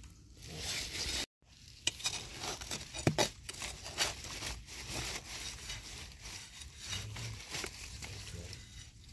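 Dry leaf litter and sandy soil rustling and scraping as termite mushrooms are dug from the ground with a metal tool and by hand. There are a few sharp clicks and knocks, the loudest about three seconds in.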